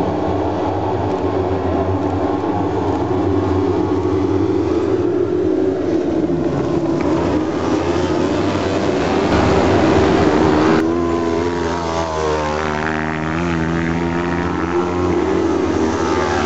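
A pack of autocross sprint-car buggies racing on a dirt track, several engines revving hard at once, their pitch rising and falling as the cars brake and accelerate through a corner.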